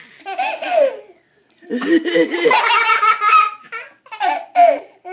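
Young child laughing hard at fake coughing: a short burst near the start, then a long run of rapid belly laughs, then another short burst near the end.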